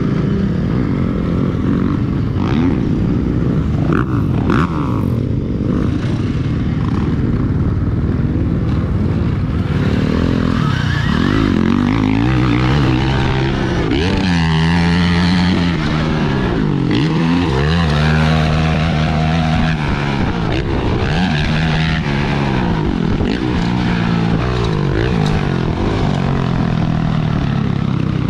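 Alta Redshift MXR electric dirt bike being ridden hard, heard from a helmet camera: a steady rush of noise, with the electric motor's whine repeatedly rising and falling with the throttle from about twelve seconds in.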